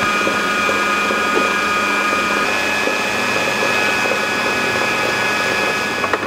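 Electric stand mixer running steadily, its paddle beater kneading thick fish paste in a stainless steel bowl: an even motor whine with several held tones.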